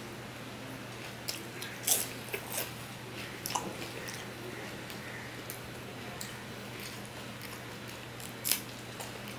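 Person eating rice and curry with the fingers from a steel plate: fingers working the rice against the plate, then wet mouth clicks and smacks of chewing. A handful of sharp clicks come between about one and four seconds in, and one more near the end, over a low steady hum.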